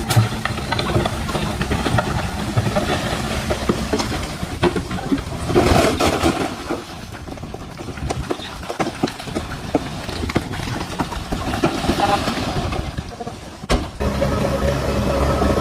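DH17C3 bulldozer's diesel engine running under load, with frequent clanks and knocks as it pushes soil and stones. The engine note steps up and grows louder near the end.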